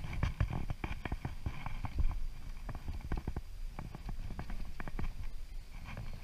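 Fly line being stripped in by hand on a fly rod: irregular soft clicks and knocks with low handling thuds as the line is pulled through the fingers and guides.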